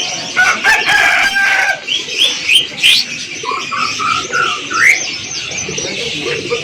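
Caged market birds calling over one another. A rooster crows with a long held note about half a second in, followed by many short rising chirps and a run of quick rising whistled notes.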